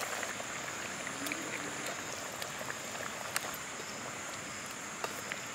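Pot of drumstick fish curry simmering over a wood fire: a steady bubbling hiss with scattered small pops and crackles.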